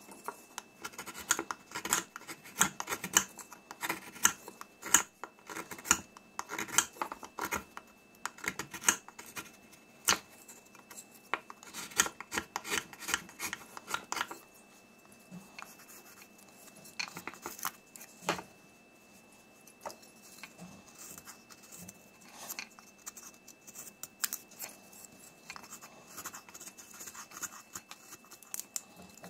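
Knife shaving green wood while carving a wooden spoon: a quick run of sharp scraping cuts, thinning after about halfway into fainter, sparser rubbing and scraping strokes.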